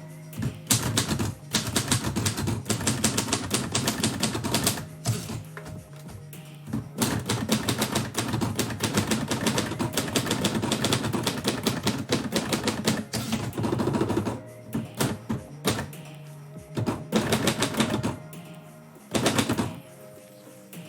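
Typewriter keys clacking in fast runs of typing, with short pauses between bursts and a sparser, stop-start stretch near the end.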